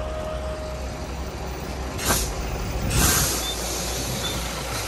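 Heavy truck engine running with a steady low rumble, with two short air-brake hisses about two and three seconds in. Faint short beeps repeat near the end.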